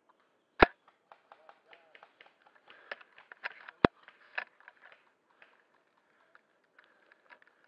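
Two sharp shots about three seconds apart from an SRS A2 Sport spring-powered bolt-action airsoft sniper rifle. Lighter clicks and rustling run between and after the shots.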